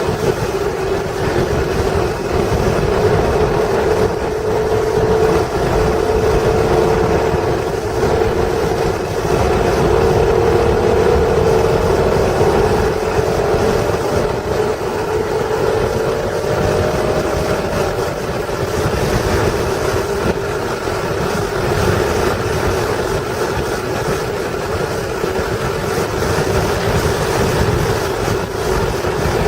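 1996 Acura NSX's stock 3.0-litre V6 running at speed on a race track, its note holding fairly steady and slowly rising in pitch about halfway through, over a low road and wind rumble.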